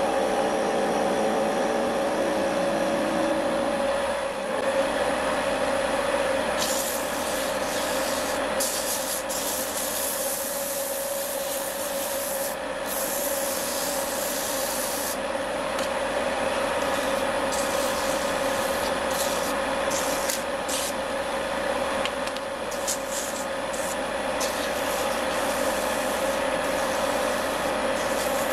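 Wood lathe running with a steady hum while a chisel cuts the spinning wood for the first few seconds, then sandpaper is held against it by hand, a rough hiss that comes and goes.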